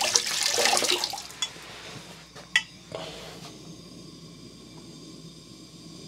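Handheld gas torch hissing as it heats a copper pipe stub. The hiss is loud at first, drops about two seconds in as the flame is turned down, then carries on as a quieter steady hiss, with a couple of light knocks.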